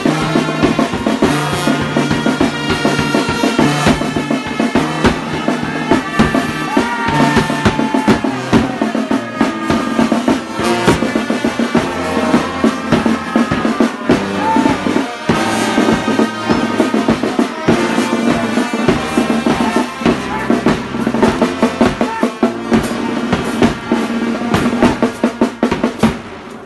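Marching brass band playing, with a bass drum beating under a sousaphone and other brass horns. The music stops near the end.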